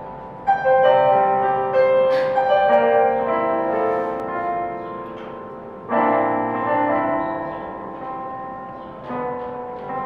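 Electronic keyboard playing in a piano voice: held chords with a melody line over them, with fresh chords struck about half a second in, at about six seconds and again near nine seconds, each slowly dying away.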